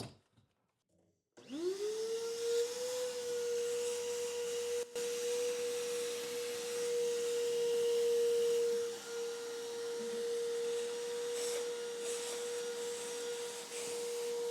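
Shop vac switched on about a second in, its motor whine quickly rising to a steady pitch over a rush of air as it vacuums up drilling dust.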